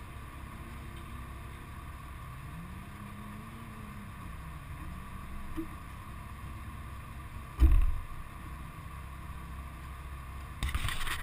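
A car door slamming shut about two-thirds of the way in, the loudest sound, over a steady low rumble. A short burst of rushing noise near the end.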